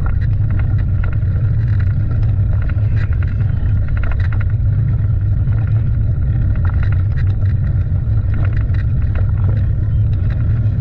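Steady rumbling noise, heaviest in the low end, with scattered faint shouts.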